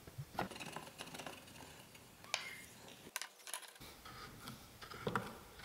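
Galvanized steel pipe bars clinking and knocking against their fittings and wooden mounting blocks as they are fitted together by hand: a few scattered, sharp metallic clinks.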